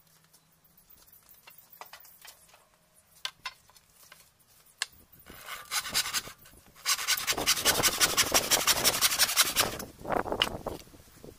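Handsaw cutting through a pallet board. A few light knocks come first, then some starting strokes, then about three seconds of fast, even sawing at about five strokes a second, which slows to a few last strokes and stops.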